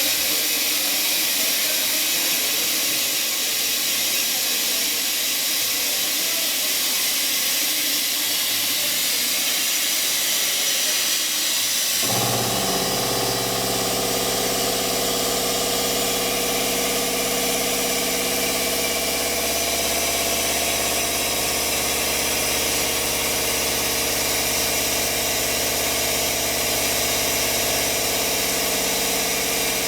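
Lagun CNC milling machine running with a steady hiss; about twelve seconds in, a motor hum with several steady tones starts up and holds.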